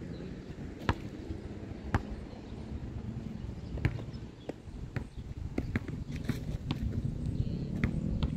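Basketball bouncing on a hard court, sharp single thuds about a second apart, then coming quicker in the second half, over a steady low rumble.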